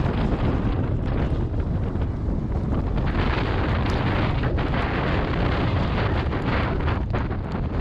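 Heavy rain pouring down in a steady, dense rush, with wind rumbling on the microphone.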